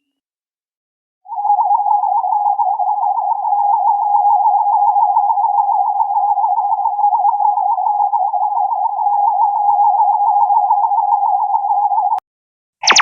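Electronic sci-fi sound effect: a steady mid-pitched tone with a fast warble. It starts about a second in, holds for around eleven seconds and cuts off suddenly. A harsher, buzzier electronic burst begins right at the end.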